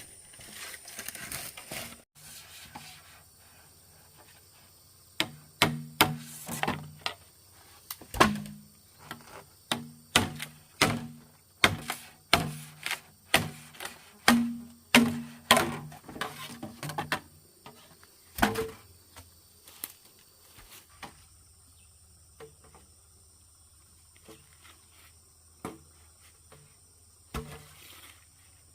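A run of sharp knocks, about one to two a second, each with a short hollow ring. They start about five seconds in and thin out after about eighteen seconds to a few scattered knocks.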